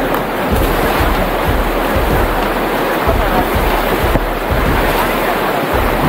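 River rapids rushing and splashing around an inflatable raft, a loud steady rush of white water, with wind buffeting the microphone in uneven gusts.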